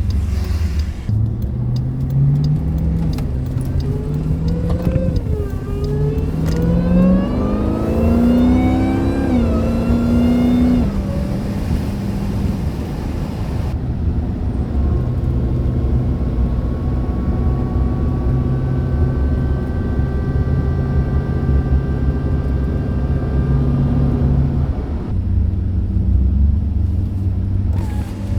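Jeep Grand Cherokee Trackhawk's supercharged 6.2-litre V8 accelerating hard through several upshifts, its pitch and supercharger whine climbing in steps. It then settles into a steady cruise with a thin, steady whine, and starts pulling again near the end.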